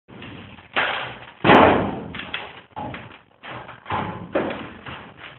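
A series of thumps and knocks against a garage door, with the loudest bang about a second and a half in, as a child climbs on it and is pulled down.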